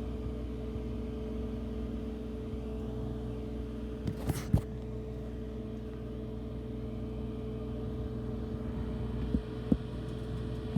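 Microwave oven running with a steady hum, with two sharp clicks about four seconds in and two more near the end.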